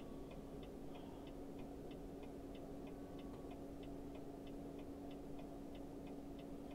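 Faint steady hum with a light, even ticking about three times a second, heard inside a semi truck's cab.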